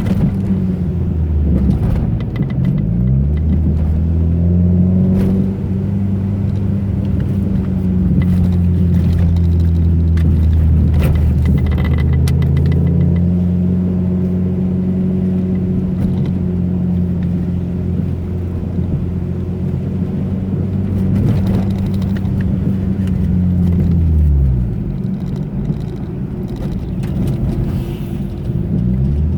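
Car engine running under way, heard from the car, its pitch dropping and climbing again a few times as it shifts or eases off and pulls again. Bumps and rattles click through it.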